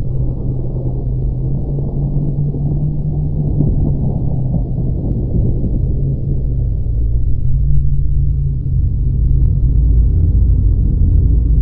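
Deep, steady rumbling drone of a horror sound effect, a low hum underneath a dense rumble; the lowest rumble grows heavier over the last few seconds.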